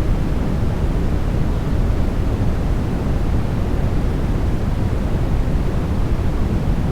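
Steady, unchanging sleep noise played as a white-noise track, weighted heavily toward the low end so it sounds like a deep, even rush rather than a bright hiss.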